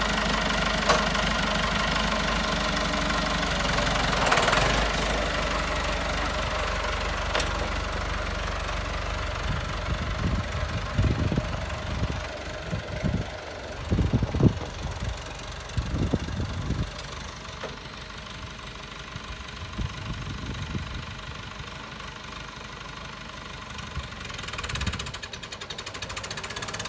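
Massey Ferguson tractor engine running steadily, then driving off and growing fainter as it moves away. Irregular low thumps about halfway through.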